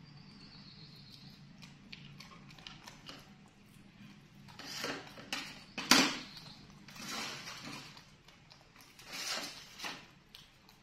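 Pet monkeys eating from a dish: scattered rustles, scrapes and small clicks of food and dishware, with one sharp clink about six seconds in, over a faint steady low hum.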